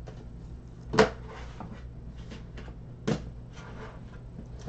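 Hard clear plastic card holder handled in the fingers and turned over, giving two sharp plastic clicks, about a second in and about three seconds in, with a few fainter ticks between, over a low steady hum.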